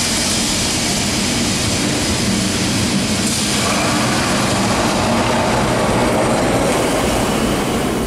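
Lisbon's vintage yellow electric street tram running along its rails as it pulls up to a stop: a steady, loud rumble of wheels on track.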